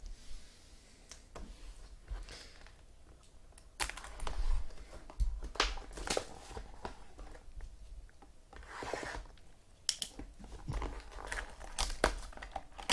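Trading card packs being torn open: wrappers tearing and crinkling in short bursts, with sharp clicks of cards and packaging being handled.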